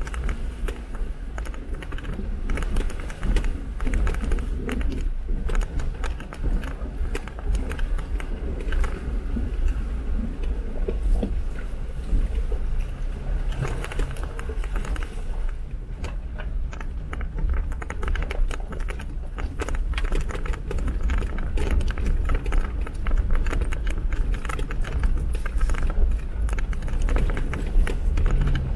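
Jeep Wrangler driving over rough ground: a low engine and road rumble with constant rattling and crunching clicks.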